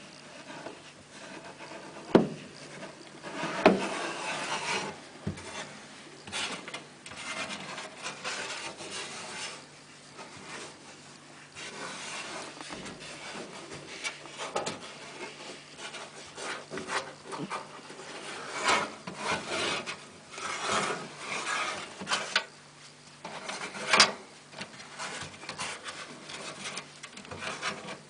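Irregular scraping and rubbing from hands and tools working inside a stripped-down Hotpoint Aquarius tumble dryer while its motor is being taken off, with a few sharp knocks.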